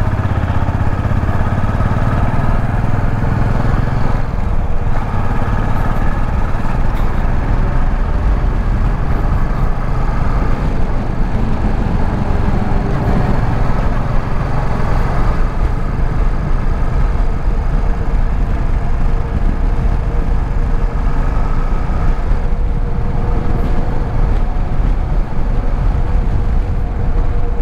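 Royal Enfield Classic 350's single-cylinder engine running steadily as the motorcycle is ridden along.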